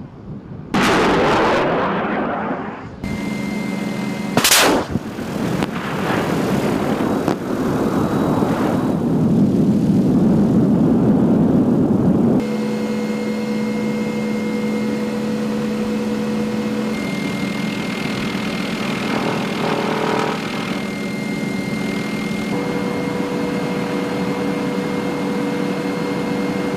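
MD 530F light attack helicopter in flight with its weapons firing. Near the start comes a sudden loud blast with a long rushing tail, and about four and a half seconds in a single sharp crack. After that the turboshaft engine and rotors run as a steady drone with a few held whining tones.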